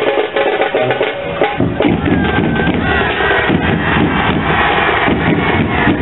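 Loud traditional drumming, a dense, continuous percussion beat played to set the step for a group drill.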